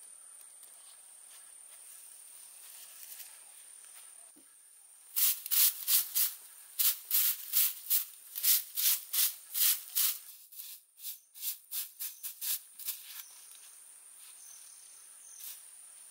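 Steady insect drone in the background. Through the middle comes a run of about twenty short, scratchy strokes, about three a second, the loudest sound here, fading out a few seconds before the end.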